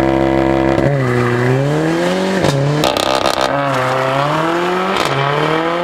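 Car engine and exhaust accelerating hard: revs held steady for about a second, then climbing and dropping back at each of three or four upshifts, with a short crackle at one shift near the middle.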